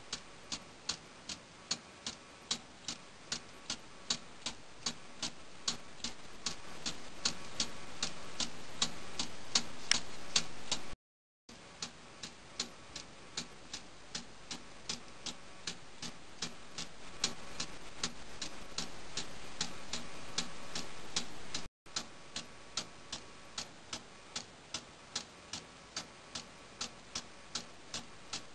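Meccano balance-wheel clock ticking steadily, about three ticks a second: the escapement released by the swinging spring-loaded balance wheel. The sound drops out briefly twice.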